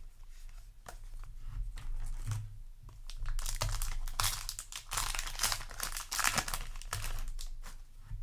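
Crinkling and rustling of a foil Yu-Gi-Oh! booster pack and its trading cards being handled, louder in the second half.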